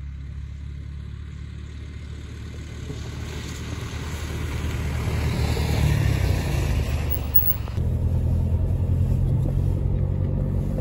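A car's engine and tyres on snow grow louder as it approaches and passes close by, loudest about six seconds in. From about eight seconds in, a steady low engine drone of a vehicle driving along a snowy road.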